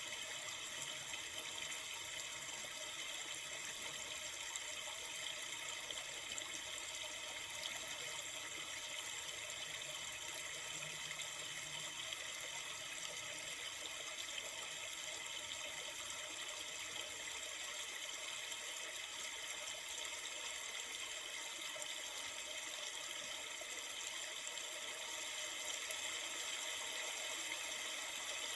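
Steady rush of flowing river water, an even unbroken wash of sound.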